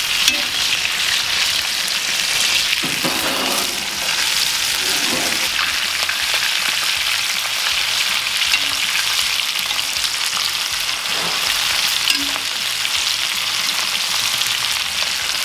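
Clarified butter sizzling steadily in carbon steel and cast iron skillets around searing steaks, as a spoon bastes them, with faint clicks and scrapes of the spoon against the pans.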